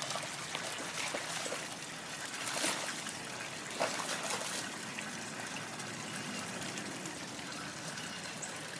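Steady trickle of running water, with a few soft splashes about two and a half and four seconds in from a Boston terrier wallowing in a muddy puddle.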